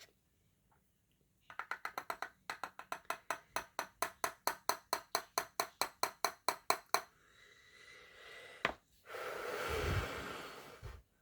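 Rapid run of light, ringing plastic taps from a makeup powder container being worked, speeding up to about six a second. Then a single click and a breathy hiss of about two seconds near the end.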